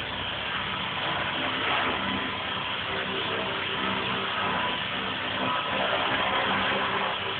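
Electric RC helicopter (E-Sky King 2) hovering, a steady whine of its motor and rotor with a constant hiss and held tones and no change in pitch.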